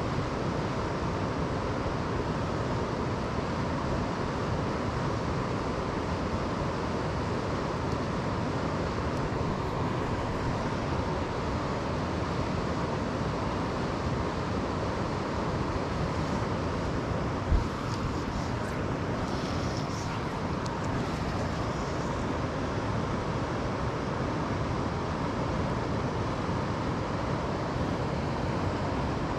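Steady rush of river water flowing over rocks, even and unbroken, with a single brief low thump about halfway through.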